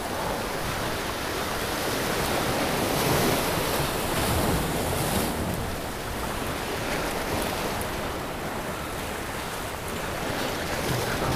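Surf breaking and washing over jetty rocks, swelling in surges with each wave, with wind on the microphone.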